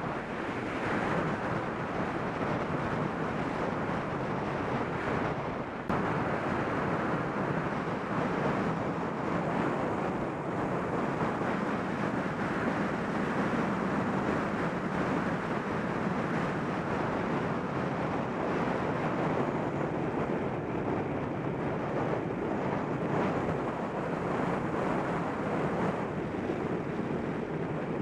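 Wind rushing over the microphone of a bike-mounted camera on a fast road-bike descent, a steady roaring noise with a brief dip about six seconds in.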